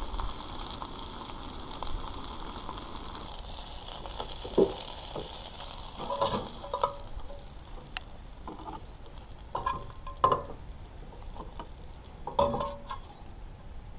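Crappie fillets frying in a nonstick skillet on a propane camp stove, a steady sizzle that is strongest in the first few seconds. A metal spatula scrapes and clinks against the pan several times as the fish is lifted out.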